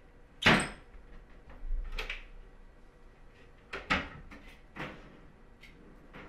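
Kitchen cabinet door knocking shut, loudly, about half a second in, followed by a few lighter knocks and clatters of things being handled at the counter.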